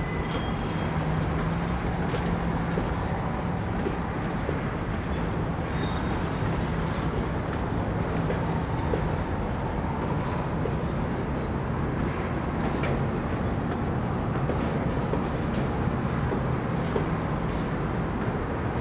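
Freight train cars rolling past: a steady rumble of steel wheels on the rails, with a low hum and a few faint squeaks.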